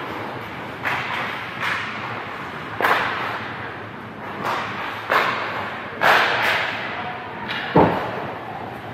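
Hockey skate blades cutting and scraping on the ice in a string of short, sharp swishes, with one heavier thump near the end.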